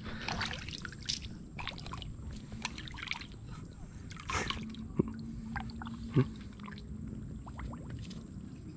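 Shallow lake water splashing and dripping as a stringer of snakehead fish is dipped into it and lifted out, in irregular small splashes and drips, with two sharper clicks about five and six seconds in.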